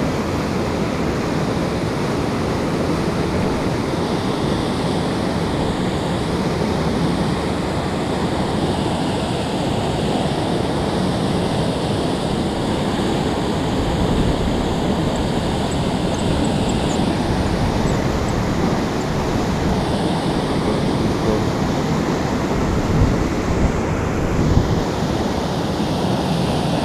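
Water from a concrete dam rushing steadily through its gates into the river as whitewater, an even noise with no break. A couple of low knocks come near the end.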